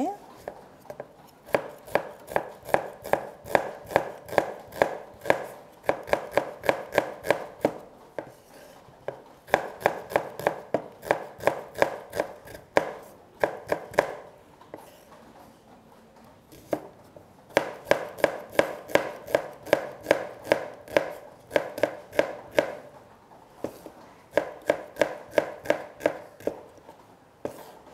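Kitchen knife slicing a small red onion on a wooden cutting board: runs of sharp chops, about three a second, broken by short pauses.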